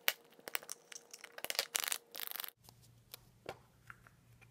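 Plastic surprise egg being handled and pried open: a run of clicks, scrapes and crackling for about two and a half seconds, then a few light ticks.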